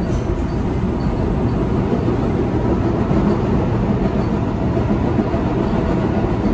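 MBTA subway car running on the rails, heard from inside the car as a steady rumble of wheels and running gear.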